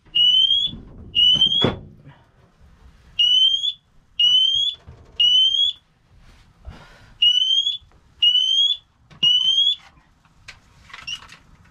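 Smoke alarm going off in the temporal-three pattern: three shrill half-second beeps a second apart, a pause, then three more, each beep rising slightly in pitch. It has been set off by smoke from food burning in the log burner.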